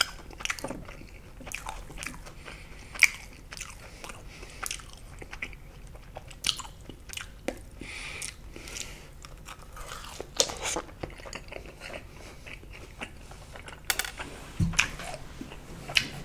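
Close-miked eating of a deep-fried battered sausage skewer dipped in syrup: crisp, crunchy bites and chewing, with irregular sharp crackles and mouth clicks.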